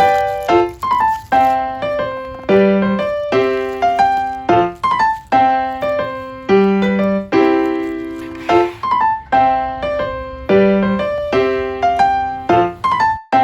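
Background music: a light, bouncy piano tune played as a steady run of short notes in a repeating pattern.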